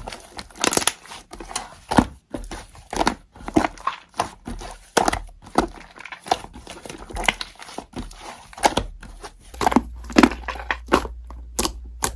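Slime being squished and pressed by hand close to the microphone: an irregular run of short crackly, crinkly pops and squelches.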